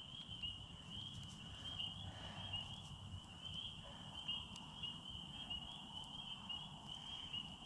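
A steady, slightly wavering high-pitched trill from the evening's calling insects, over a low background rumble, with a few faint clicks.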